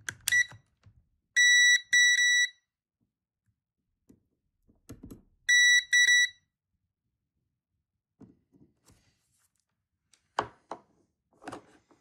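Digital multimeter's continuity beeper sounding in two pairs of short, high-pitched beeps about four seconds apart as the probe tips are held on pins of the keyboard circuit board, each beep marking a closed connection between the probed points. Light clicks and taps of the probes and handling on the board come near the start and in the last couple of seconds.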